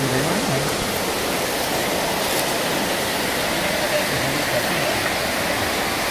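Shallow rocky stream rushing steadily over stones: an even, unbroken hiss of running water.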